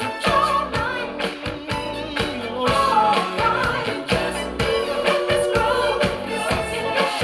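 A pop-funk song with a singing voice and a steady beat, played back through hi-fi loudspeakers and picked up by a microphone in the room.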